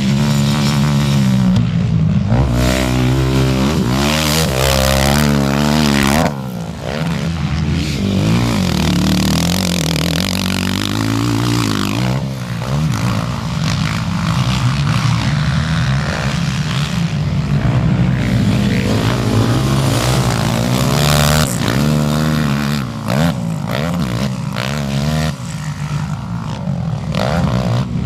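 Racing quad (ATV) engines revving hard, the pitch climbing and falling again and again as the riders work the throttle over jumps and through turns, with a short dip in level about six seconds in.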